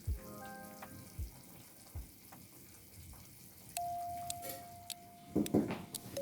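Kitchen handling sounds: a few soft low thumps, a faint held tone in the middle, and a brief clatter near the end.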